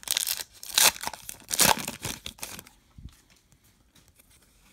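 Wrapper of a Topps Star Wars trading-card pack being torn open and crinkled, loudest twice in the first two seconds and dying away after about three.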